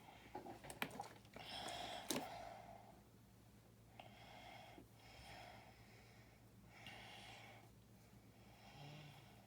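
Faint breathing through the nose, one soft breath every second or two, while small plastic toy-brick parts are pressed together. There are a couple of sharp plastic clicks in the first two seconds.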